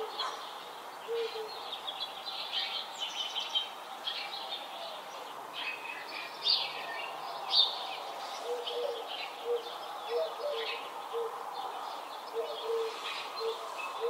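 Several birds chirping and singing in a spring morning chorus, with short low calls repeated again and again in the second half.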